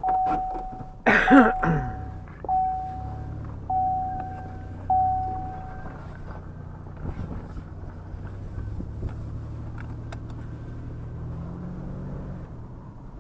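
A vehicle's engine starts about a second in and then idles steadily. A dashboard warning chime bongs five times, about a second apart, before falling silent.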